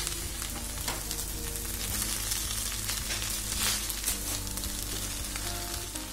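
Egg noodles with chicken and vegetables stir-frying on high heat in a nonstick pan: steady sizzling, with a spatula scraping and tossing through them in short clicks.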